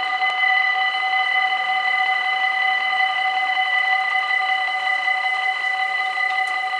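Dutch level-crossing warning bells ringing steadily, a continuous high ring with several fixed tones, sounded as the barriers come down to warn of an approaching train.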